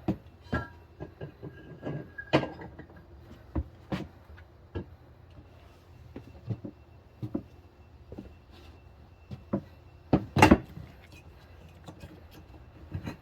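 Irregular knocks and clacks of hand work on a manual tire changer, tools and rim striking as the tire is handled, with the loudest knock about ten seconds in.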